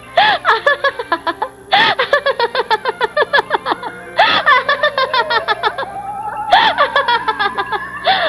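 A woman laughing in repeated bouts of quick giggling pulses, each bout starting loud and tailing off, over a comic film score. The score holds a steady low drone, and a tone rises slowly in pitch from about the middle.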